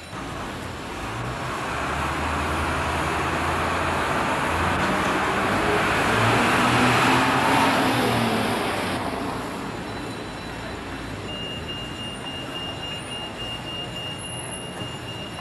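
A motor vehicle passing by on the street, its engine noise growing louder to a peak about seven seconds in, then fading away.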